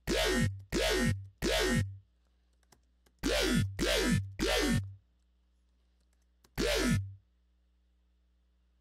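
Dubstep bass one-shot patch in the Xfer Serum software synthesizer, played seven times in three groups: three hits, three hits, then one. Each hit is a short distorted bass note whose pitch sweeps down over a heavy sub-bass.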